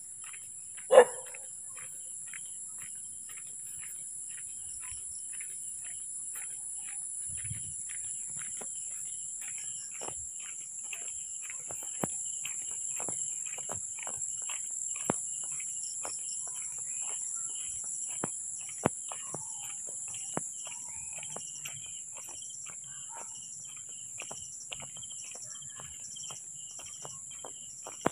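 Footsteps of a person walking at a steady pace, about two steps a second, over a steady high chorus of night insects. A dog barks once, loudly, about a second in.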